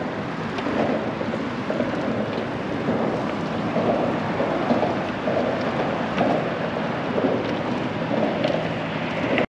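Wind buffeting the microphone on a small open boat, a steady rushing noise with irregular louder gusts, mixed with water noise around the boat.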